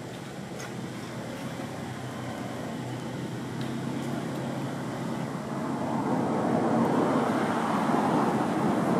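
Steady noise of a motor vehicle, growing louder from about six seconds in.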